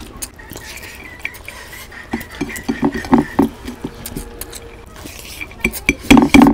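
Bare hand mixing rice and curry on a ceramic plate, fingers scraping and clicking against the plate, with a run of clicks about halfway through. Near the end comes a loud burst of eating sounds as a handful goes into the mouth.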